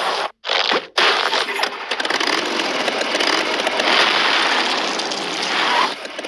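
Sound effects of a TV channel logo animation: two short noisy whooshes in the first second, then a long, dense crackling noise that stops at the end.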